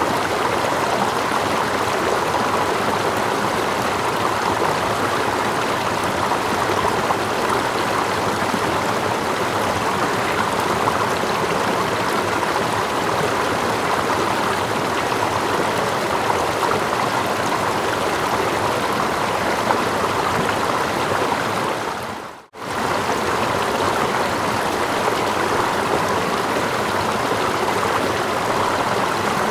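Steady rushing of running water: a stream with water lapping close by and a small waterfall further off. About three-quarters of the way through the sound dips almost to silence for a moment and comes straight back.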